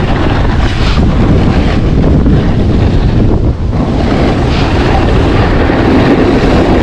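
Heavy wind buffeting the microphone as a snowboarder rides downhill, mixed with the hiss of the board sliding and scraping over packed snow.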